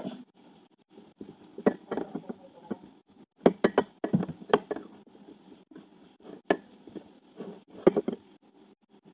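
Utensils and dishes clinking and knocking against a plate, a dozen or so sharp, separate strikes with a quick cluster about three and a half to four and a half seconds in.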